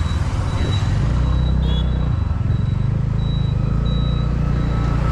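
Scooter engine and wind noise, a steady low rumble that grows louder about a second in as the scooter pulls away and speeds up. A thin high beep repeats about once every three-quarters of a second.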